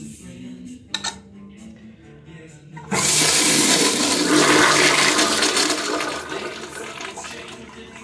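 Gerber Ultra Flush pressure-assisted toilet flushing: a sudden loud rush of water starts about three seconds in, stays strong for a few seconds, then tapers off. A brief click about a second in.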